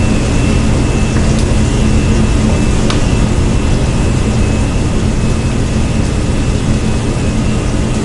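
Steady loud roar of a commercial kitchen's ventilation fan, with a hum and a faint high whine. Over it come a couple of sharp clicks of a fork against a stainless steel mixing bowl as eggs are whisked.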